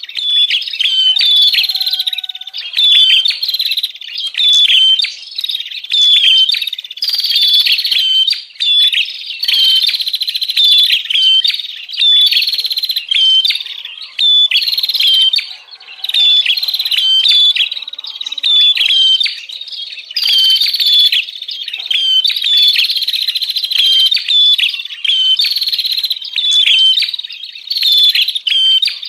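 Prenjak songbirds in an agitated chorus of rapid, high, sharp chirps. The chirps come in quick bursts of about a second with short breaks, over and over. This is a lure-call recording of excited prenjak, used to draw in wild birds.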